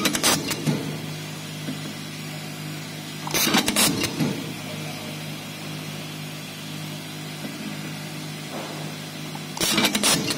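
Semi-automatic nylon cable tie machine cycling three times, each cycle a quick burst of mechanical clicks as it feeds, tightens and cuts a cable tie around a motor stator's coil windings: once at the start, once about three and a half seconds in, and once near the end. A steady machine hum runs underneath.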